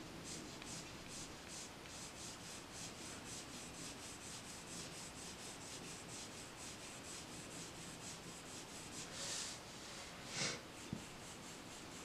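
Prismacolor coloured pencil stroking lightly over paper: a quick, even run of soft scratching strokes, with two louder, longer strokes near the end.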